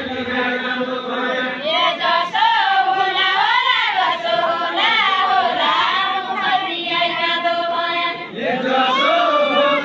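Deuda folk song sung unaccompanied by a group of voices together in long, wavering, chant-like phrases, with a short break about eight seconds in before the next phrase starts.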